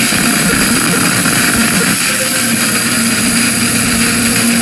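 Synthesized electronic music from iPad synth apps: a dense, steady hissing noise drone like a jet's roar, with a low held note that grows stronger about halfway through.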